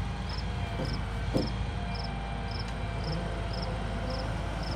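Log truck's engine and crane hydraulics running steadily as the empty grapple swings back, with one short knock about a second in. Crickets chirp in a steady rhythm, about two chirps a second.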